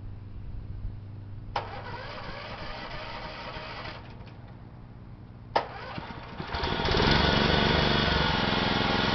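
John Deere 14SE mower engine running slowly, with two sharp clicks, then revving up about six and a half seconds in and holding a louder, faster steady run. The owner thinks its running sounds like it probably needs a carburettor overhaul.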